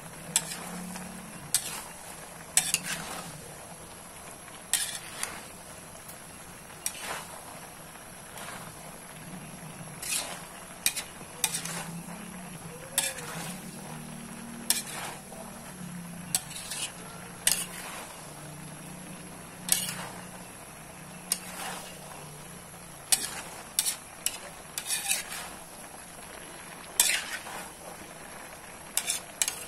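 Metal spatula scraping and clinking irregularly against a large aluminium wok while chop suey vegetables in cream sauce are stirred, with a low sizzle from the pan underneath.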